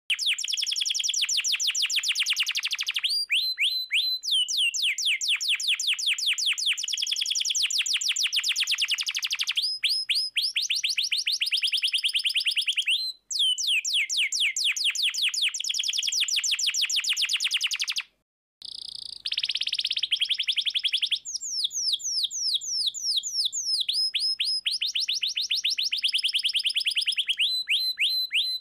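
A domestic canary in full song, singing long, fast trills of rapidly repeated notes. Each roll is held for a few seconds before it switches to another. The song breaks off twice briefly.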